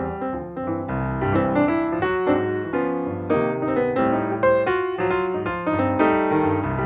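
Background music led by piano, with a steady run of notes over a bass line.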